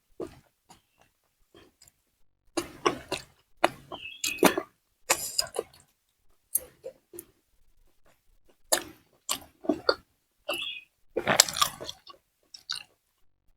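A person chewing and biting food, in short bursts separated by brief pauses.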